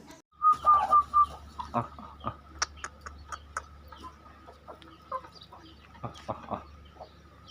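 Aseel chickens clucking, with a quick run of short high notes about half a second in and scattered sharp clicks through the rest.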